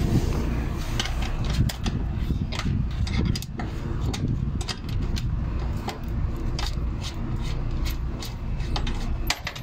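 Ratchet wrench clicking in quick runs as bolts are undone on the condenser fan mount of a package air-conditioning unit, over a steady low rumble.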